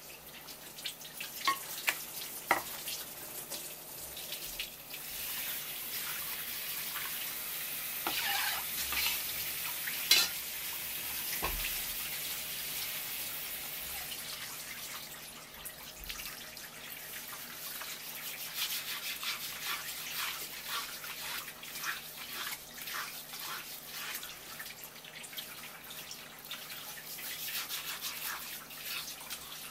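Tap water running and splashing onto a wooden cutting board while a hand rinses and rubs the slimy skin of a pike conger. In the second half come many short, wet rubbing strokes.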